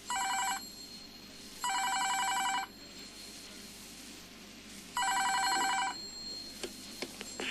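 An electronic telephone ringer trilling three times: a short ring, a longer one about a second and a half later, and a third after a longer pause. It is an incoming call on the studio's phone line.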